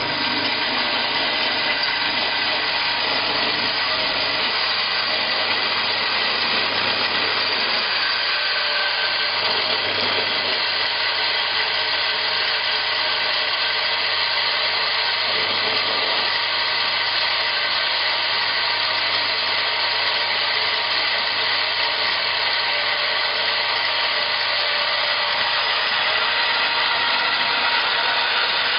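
Electric coffee grinder running steadily: a continuous whirring noise with a low motor hum underneath.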